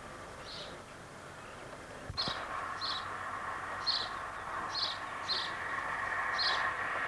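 A bird chirping outdoors: short high chirps repeated every half second to a second. About two seconds in a click is heard and a steady hiss comes in under the chirps.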